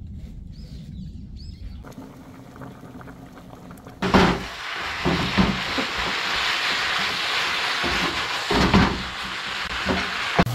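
Pork bulgogi with onions frying in a pan, a steady sizzle that starts suddenly about four seconds in, with the occasional knock and scrape of a wooden spatula stirring it. Before that there is only faint low background.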